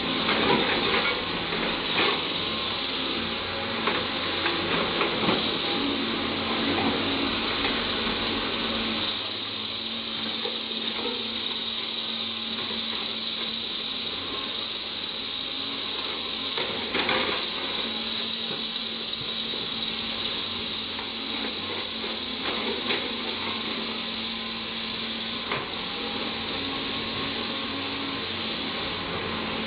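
CAT 320 hydraulic excavator working: its diesel engine and hydraulics run steadily while the bucket digs and scrapes through loose coal. Scattered knocks and clatters come from the bucket and coal, busier in the first several seconds.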